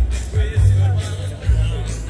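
Rock music with a strong bass line and wavering melody lines over it.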